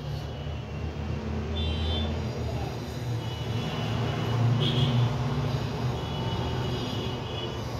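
Low steady rumble of road traffic, swelling about halfway through, with a few brief faint high-pitched tones over it.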